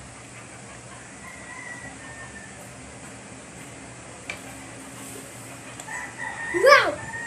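A rooster crows near the end, a loud wavering call with a fainter call about a second in. A little past the middle a spoon clicks once against a plate.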